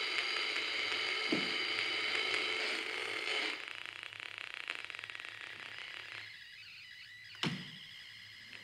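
Electronic sound from Exo.Rosie, a wearable instrument played by body movement: a dense, high, many-toned drone that about three and a half seconds in breaks into a fast stream of buzzing clicks and fades down. A single sharp knock comes near the end.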